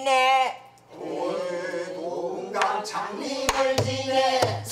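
Pansori singing: a woman's held, wavering note ends, then voices sing the next phrase together. Near the end there are a few sharp strokes on a buk barrel drum.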